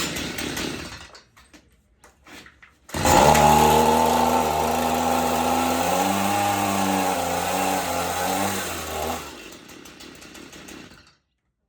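Stihl MS 162 two-stroke chainsaw with water being fed into its intake. It starts about three seconds in and runs for about six seconds, its pitch wavering unevenly, then cuts out and goes quiet.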